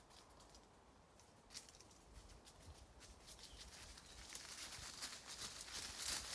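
Faint, rapid scratching and scrabbling of dogs' paws digging in soil and leaf litter. It grows busier from about halfway through and is loudest near the end.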